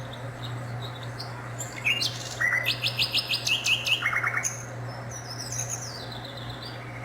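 Songbirds chirping, with a burst of rapid trilled chirps about two seconds in lasting a couple of seconds, then fainter scattered calls, over a steady low hum.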